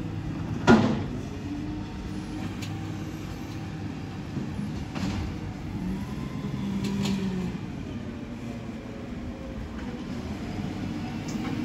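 Volvo side-loader garbage truck's diesel engine running as the truck creeps forward, with a sharp bang about a second in and several short hisses of air.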